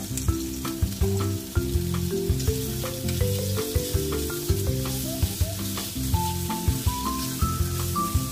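Sliced pork and onion frying in oil in a nonstick pan, sizzling as they are turned with chopsticks. Background music plays over it, with a melody that climbs in steps near the end.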